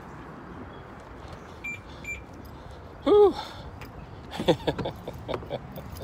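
Two short high electronic beeps in quick succession, then a man's brief wordless vocal sound about three seconds in, followed by a few soft mumbled sounds and mouth clicks, over a steady background hiss.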